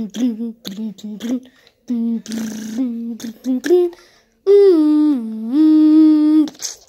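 A boy's voice humming sound effects for toy ships: a run of short hummed syllables, then a long hum about four and a half seconds in that dips in pitch and comes back up before stopping.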